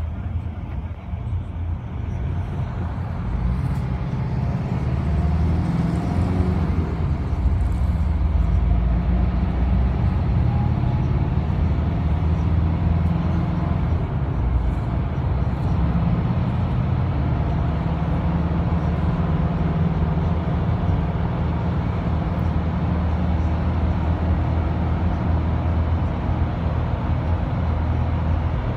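Minibus engine and tyre noise heard from inside the cabin while driving at speed: a low, steady drone that grows louder about three seconds in.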